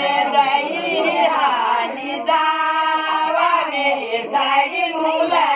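Women's voices singing a Kumaoni jhoda folk song together, without instruments, with one long held note about halfway through.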